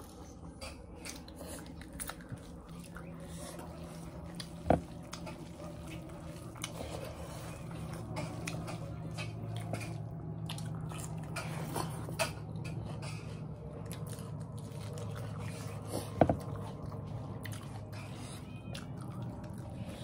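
Chewing and the small wet clicks of rice being mixed and scooped by hand from metal plates, over a steady low hum. Two sharp knocks stand out, one about five seconds in and one later, about three-quarters of the way through.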